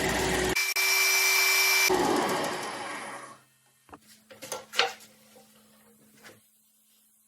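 Wadkin RS lathe running with a loud rush of machine and wood noise that dies away about three seconds in. A few light clicks and knocks follow over a faint steady hum.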